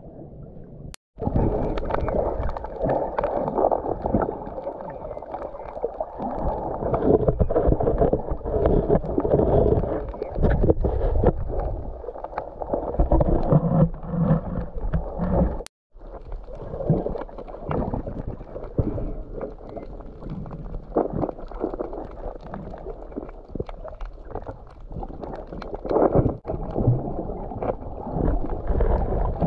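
Muffled underwater water noise picked up by a submerged camera: low sloshing and gurgling with scattered clicks. It cuts out completely twice for a moment.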